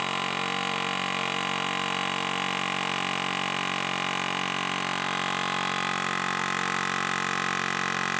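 Pneumatic air hammer hammering continuously on the end of a rust-seized axle half shaft stuck in the splines of a BMW E46 M3 rear wheel hub, a steady, fast, even chatter of metal on metal.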